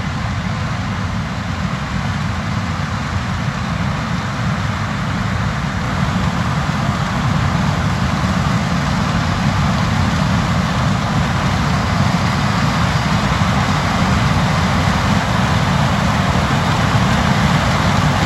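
Combine harvester running steadily while harvesting corn, a dense, continuous machine noise that slowly grows louder.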